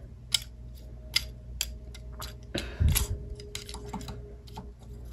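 Light plastic clicks and taps from a Transformers action figure being handled and its joints moved, with one duller knock about two and a half seconds in.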